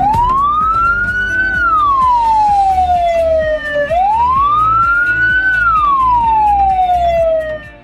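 Emergency siren wailing in two slow cycles, each rising for about a second and a half and falling for about two seconds, cutting off near the end. Background music with a steady beat plays underneath.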